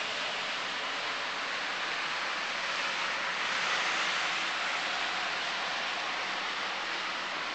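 Steady outdoor rushing hiss with no distinct events, swelling a little about three to five seconds in.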